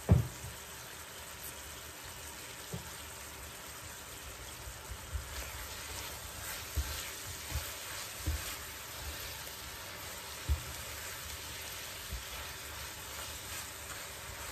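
Apple slices sizzling steadily in a frying pan as they caramelise. A sharp knock comes right at the start, and from about five seconds in a utensil turning the slices knocks and scrapes against the pan now and then.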